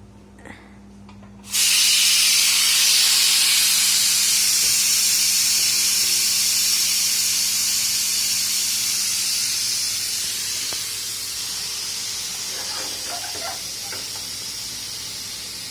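Pressure cooker releasing its steam with the whistle weight lifted: a loud hiss that starts suddenly about a second and a half in and slowly fades as the pressure drops.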